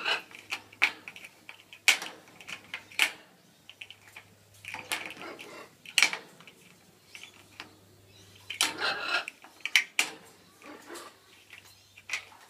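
Toy blocks clacking and knocking irregularly as African grey parrots handle and drop them, with a few longer clattering runs.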